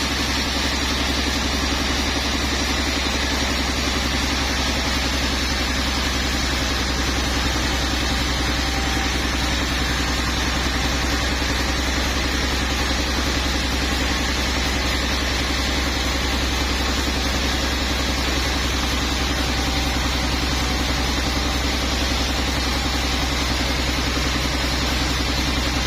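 Sawmill machinery running with a steady, unchanging engine-like hum.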